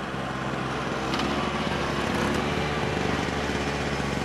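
Small engine of a Piaggio Ape three-wheeled light truck running as it drives along, growing a little louder about a second in as it comes close.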